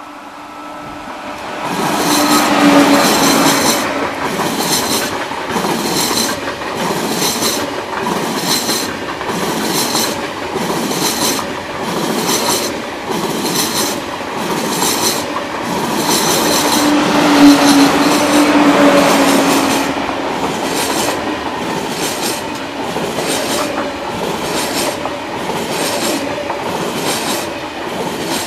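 A pair of coupled TGV Atlantique high-speed trainsets passing at speed. The rush builds over the first two seconds as the leading power car goes by. A regular clack of wheels over the rail follows, a little faster than once a second, as the coaches pass. A second loud surge comes just past the middle, when the two power cars coupled at the centre go by, each with a low steady tone.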